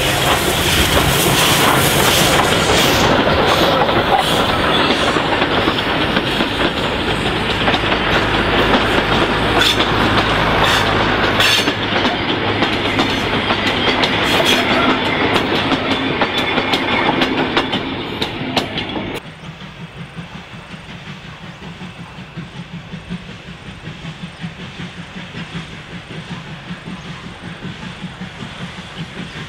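J class 2-8-0 steam locomotive J541 and its heritage carriages passing close by, loud, with the clatter of wheels over rail joints. About nineteen seconds in, the sound drops suddenly to the quieter, distant locomotive working steadily, with an even pulsing exhaust beat.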